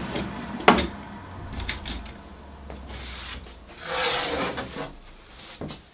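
Workshop handling noise: a sharp click of a clamp about a second in and a couple of smaller knocks, then an MDF board rubbing and scraping across the workbench top as it is slid and turned, about four seconds in.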